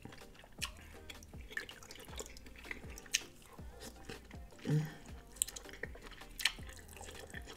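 Close-miked eating of butter-dipped lobster meat: wet lip smacks and chewing as scattered small wet clicks, with a brief low hum from the eater a little past halfway.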